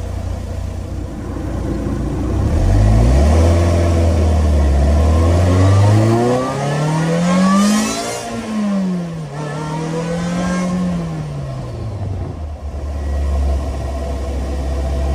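The 1989 Toyota MR2 Supercharged's 4A-GZE supercharged four-cylinder, heard through its Fujitsubo Legalis R exhaust from just above the engine, pulling away from low revs. The revs climb steadily for several seconds, drop sharply about eight seconds in, climb briefly again, then ease off and settle into a steady low drone.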